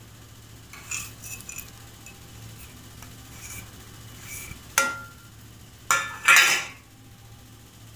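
Steel plate clinking and scraping against the pan as roasted nuts and grated coconut are tipped into thick halwa: light scrapes about a second in, a sharp ringing clink about five seconds in, and a louder clatter a second later.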